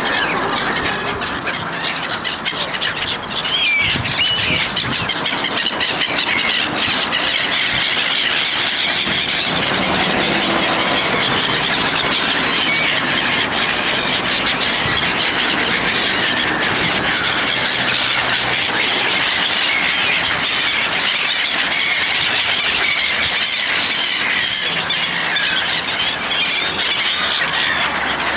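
A large flock of gulls calling all at once, many high cries overlapping without a break.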